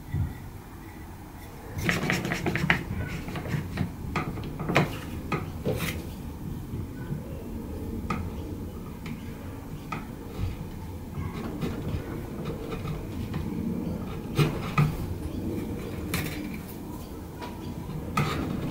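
A steel hand chisel paring a wooden plug, with scraping and a run of sharp clicks and taps as the blade works the wood and tools are handled. The loudest clicks come about a quarter and three quarters of the way through.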